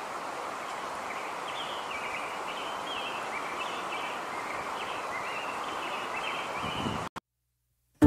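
Steady outdoor nature ambience, an even rushing noise, with a small bird repeating short high chirps over it. It cuts off suddenly about seven seconds in.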